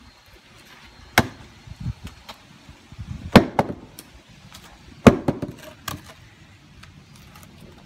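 Hatchet chopping into a weathered wooden 4x4 post: three hard strikes about two seconds apart, the middle one the loudest, with a few lighter knocks between them.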